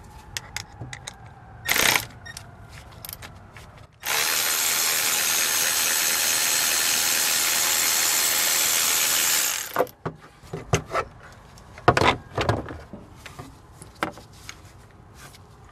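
Cordless ratchet motor running steadily for about six seconds, turning a spark plug out of its well, after a brief burst about two seconds in. Sharp clicks and knocks follow as the socket and extension are handled.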